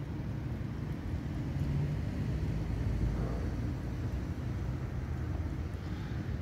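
Steady low outdoor rumble that swells slightly a couple of seconds in.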